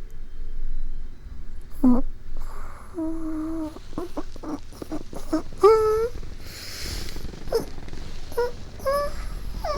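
A woman's wordless sleepy vocal sounds, close to the microphone: several short hums and groans, one held for under a second, with breaths and small clicks between them.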